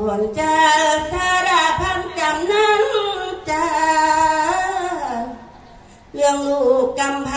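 Women of a sarabhanya troupe singing Thai Buddhist devotional verse: a slow melody of long held notes that glide between pitches. The line breaks off about five seconds in and starts again about a second later.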